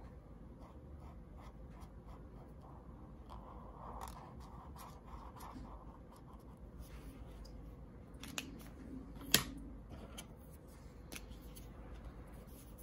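Marker tip scratching across card in short, repeated coloring strokes, faint and scratchy, with a sharp click about two-thirds of the way through.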